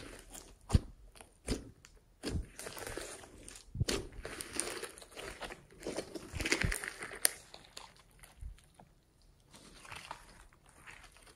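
Hands squishing, folding and stretching glossy slime with small beads mixed in: irregular sticky pops, clicks and crackles in clusters, thinning out and quieter near the end.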